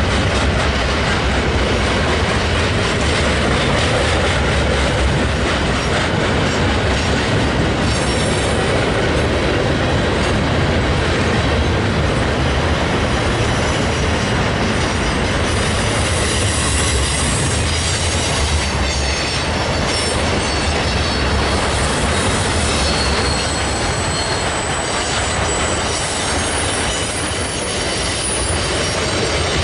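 Loaded flatcars of a freight train rolling over a steel girder railroad bridge: a loud, steady rumble and clatter of wheels on rail, with faint high wheel squeals in the second half.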